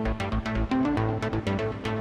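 Synapse Audio Dune 3 software synthesizer playing its 'Black Pantha KS' preset: a fast, rhythmic electronic pattern of short notes over a steady low bass tone.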